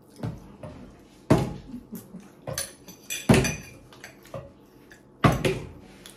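Partly filled plastic water bottle flipped and landing on a table: three sharp knocks about two seconds apart, the last the loudest. Lighter clinks of a fork on a plate come in between.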